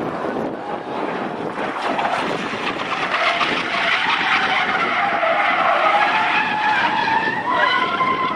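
A car drifting: tyres squealing and skidding while the engine runs at high revs, growing louder about three seconds in.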